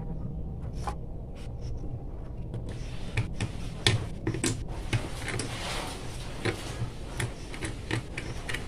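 Hands fitting the end cover onto a small sewing machine motor's housing: scattered clicks and knocks, growing into frequent clicking and scraping from about three seconds in, over a steady low hum.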